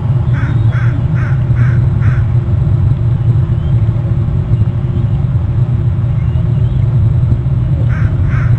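Bald eaglet giving a quick run of five short whistled notes, about two and a half a second, then two more near the end. A steady low rumble runs underneath.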